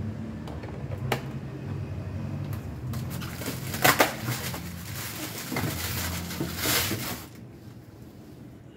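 Plastic packaging crinkling and rustling as items are taken out of a styrofoam packing box, with a few sharp knocks of handling. The rustling is loudest a little before the end and then dies down.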